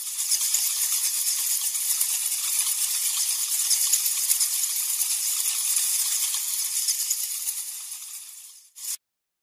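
Rattlesnake shaking its tail rattle: a continuous dry buzz lasting about nine seconds, fading near the end and stopping after a short final burst.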